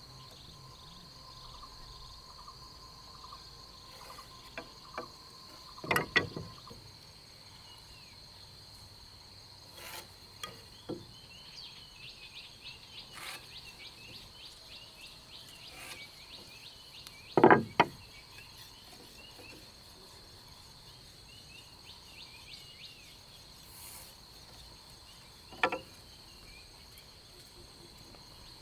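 Insects droning in a steady high pitch, with a few sharp wooden knocks of timber being worked: the loudest about two-thirds through, others about a fifth of the way in and near the end. Faint chirping in the middle stretch.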